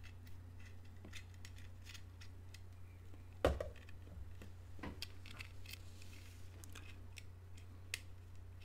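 Faint clicks and scrapes of a coaxial antenna cable's connector being fitted onto a small USB TV tuner, with one louder knock about three and a half seconds in, over a steady low hum.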